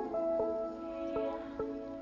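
Soft, gentle background music with notes changing in steps.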